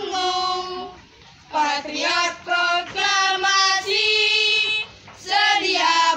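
A small group of schoolchildren, led by girls' voices, singing a song together in unison with long held notes. Two short pauses between phrases, about a second in and about five seconds in.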